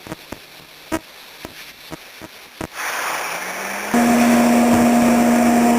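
CT520D welder-plasma cutter in plasma-cut mode: a few sharp clicks, then a hum that rises in pitch, and about four seconds in a loud steady hum with a hiss comes on and holds.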